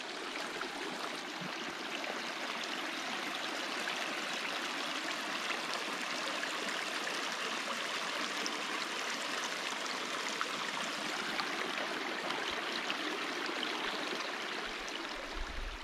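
A shallow stream trickling steadily over a limestone creek bed, an even babble of running water.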